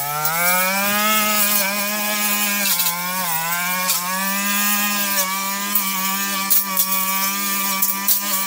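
Brush cutter engine running at high speed, its pitch sagging briefly several times as it takes load while cutting, with scattered sharp ticks in the second half.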